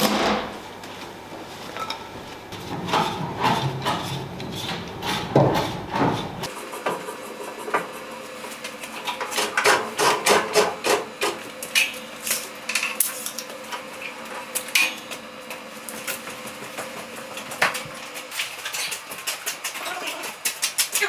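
Workshop handling sounds: irregular knocks, clicks and clatter of wood and metal being moved and set up. A low rumble under them stops suddenly about six seconds in.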